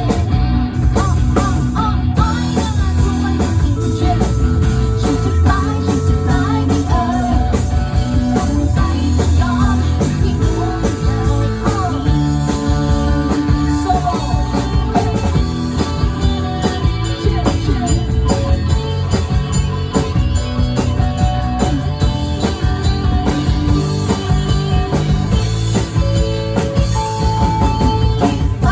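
A live band playing a rock song with electric guitar, drums and bass, and a singer's voice at times.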